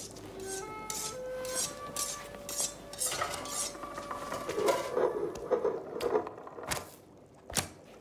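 Kitchen utensils and dishes clinking and clattering: a string of sharp metallic clicks and clanks, with a louder one near the end. A short run of held musical notes plays over the first couple of seconds.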